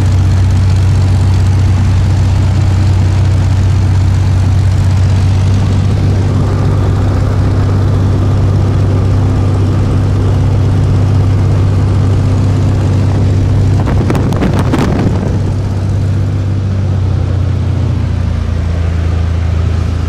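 Cessna 172's engine and propeller droning steadily in cruise, heard from inside the cabin. About two-thirds of the way through there is a brief crackle, and the drone is slightly quieter after it.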